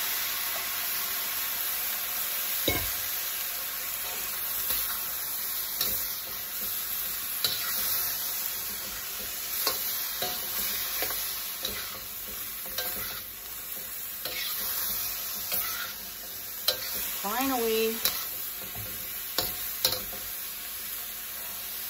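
Broccoli, tofu and egg sizzling in a hot wok as they are stir-fried, with a steady hiss and a metal wok spatula scraping and clicking against the pan every few seconds.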